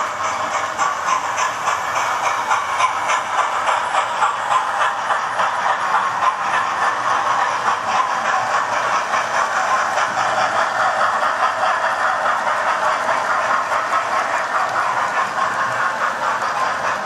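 Model trains running on a model railway layout: a steady whirr and rattle of the locomotive motors and wheels on the track, with a regular clicking.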